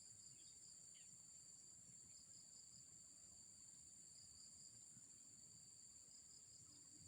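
Near silence with a faint, steady chorus of insects trilling at a high pitch, the lowest of the tones pulsing slightly.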